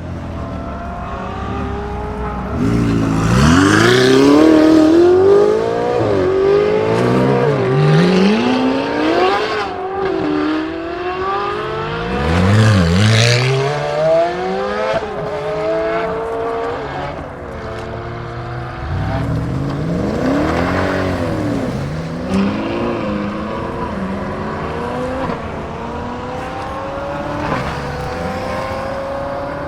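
High-performance supercar engines revving and accelerating away one after another. Their pitch climbs through the gears and drops as each car passes, and the loudest pass comes a few seconds in.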